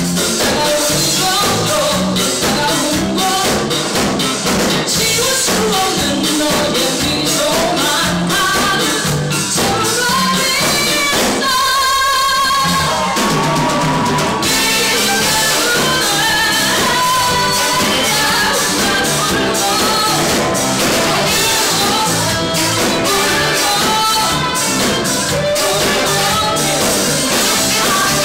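Live band playing with a woman singing lead over drum kit, electric guitar and saxophones. Near the middle the bass and drums drop out for about a second under a held, wavering note.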